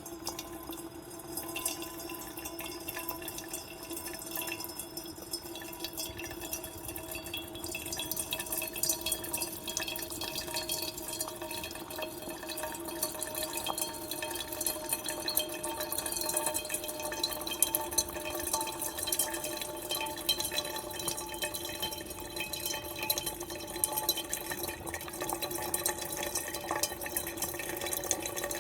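Bonavita BV1900TS drip coffee maker brewing: water hissing and dripping with a fine crackle over a steady hum, growing louder over the first several seconds and then holding steady.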